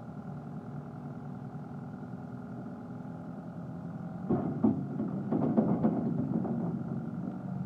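CAT skid steer's diesel engine idling steadily. About four seconds in it gets louder for a few seconds, with several sharp knocks and clatter, then settles back to idle.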